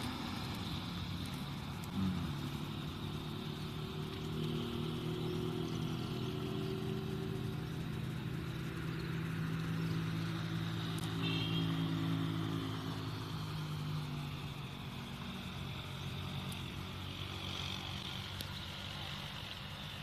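An engine running with a low, steady drone, loudest about halfway through and fading toward the end.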